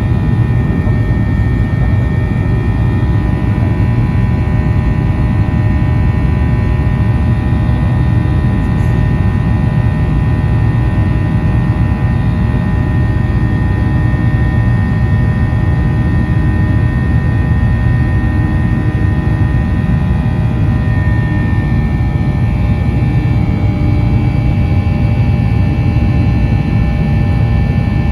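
Steady jet engine and airflow noise inside the cabin of a Boeing 737-800, its CFM56-7B turbofans giving a heavy rumble with several steady whining tones on top; one of the tones shifts slightly about three quarters of the way through.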